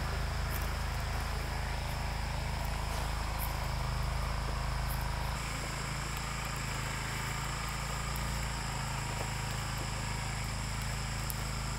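Steady drone of insects with a continuous low hum underneath; the mix shifts slightly about five seconds in.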